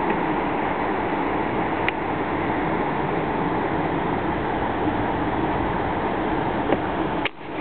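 Steady rushing of a river flowing below, with a few faint clicks; the noise dips sharply for a moment near the end.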